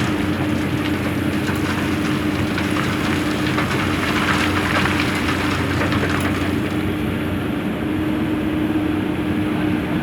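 Komatsu PC200 excavator working: its diesel engine runs steadily under load while stone and sand grind and clatter against the steel bucket. The clatter eases after about seven seconds.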